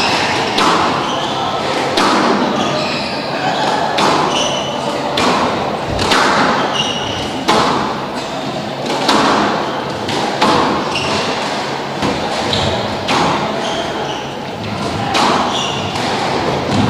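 Squash ball being struck back and forth in a rally: sharp racket hits and ball impacts on the walls about once a second, echoing in a large hall, with short high squeaks of court shoes on the wooden floor between the hits.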